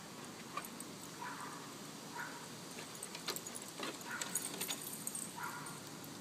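A puppy playing, giving about four short, high yips spread through a few seconds, with scattered light clicks and scuffs.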